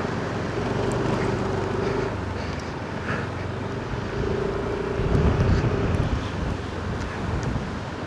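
Car driving along: steady engine and road noise. A louder low rumble swells about five seconds in.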